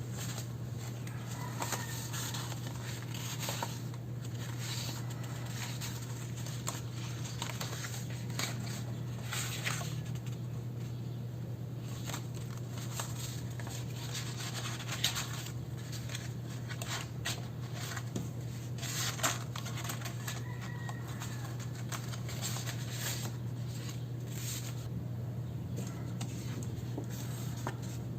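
Paper and stationery being handled during journaling: scattered scratching and rustling, with two sharper taps near the middle, over a steady low hum.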